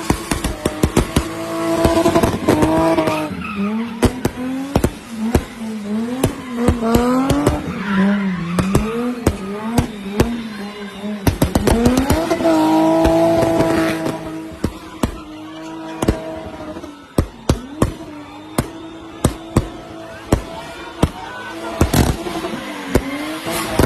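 BMW 325i's straight-six engine held high in the rev range, its pitch swinging up and down, with tyres squealing and skidding. Dozens of sharp cracks go off in quick, irregular runs throughout.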